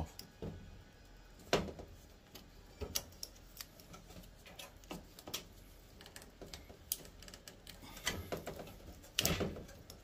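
Scattered light clicks and taps of plastic wire connectors being worked off the spade terminals of an LG front-loader's water inlet valve solenoids, at an irregular pace.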